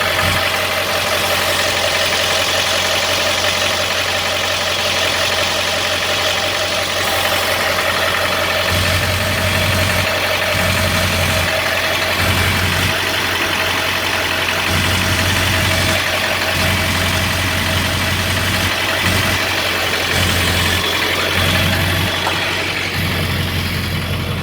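Ford 7.3-litre Power Stroke V8 turbo-diesel idling, picked up through a phone pressed against the transmission, with a low hum that comes and goes irregularly from about a third of the way in. The mechanic takes this shake, which feels like a misfire, for an out-of-balance flywheel or torque converter.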